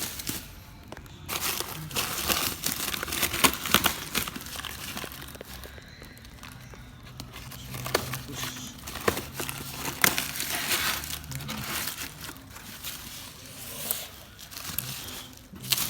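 Packaging being unwrapped by hand: irregular crinkling and rustling with sharp crackles and some tearing.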